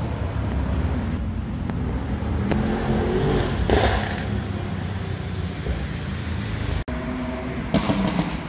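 Car engine running steadily with passing road traffic, with a short louder burst about four seconds in and again near the end.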